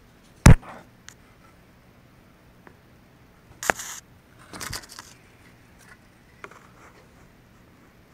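Handling noise from hands and camera knocking against the parts of an open desktop computer case: a sharp, loud knock about half a second in, a second knock about three seconds later followed by brief scraping and rustling, and a few faint clicks.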